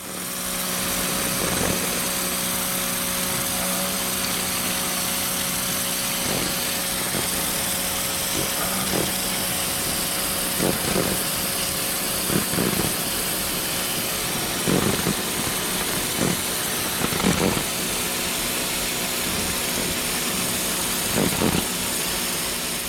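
Ryobi pressure washer running steadily at up to 2000 psi: a motor hum under the hiss of the high-pressure water jet blasting dirt and old paint off wooden fence pickets. Short swells in pitch come every few seconds as the spray moves across the boards.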